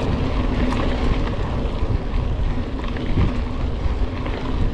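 Wind rushing over the microphone with tyre and frame rattle from a mountain bike descending a dirt trail.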